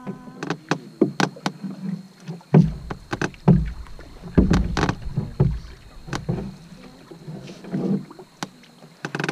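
Paddles knocking against the side of a canoe during paddling: a string of sharp wooden knocks, with heavier low thumps from about two and a half to six and a half seconds in.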